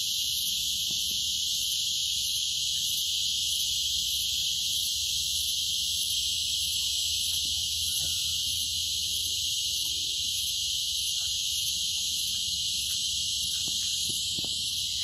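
Insects buzzing in a steady, high-pitched chorus that does not let up, with a few faint knocks beneath it.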